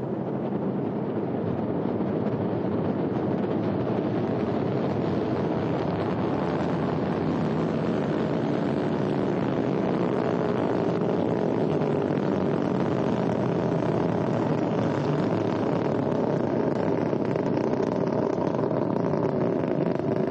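Ariane 5 rocket lifting off: the steady roar of its Vulcain main engine and two solid rocket boosters, swelling over the first second or two and then holding steady.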